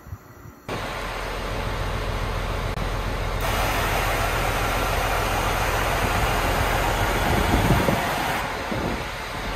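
Mitsubishi Fuso Aerostar city bus idling, its diesel engine running steadily. About three seconds in, a loud, even hiss of air from the air suspension starts as the bus kneels. It runs for about five seconds and stops near the end.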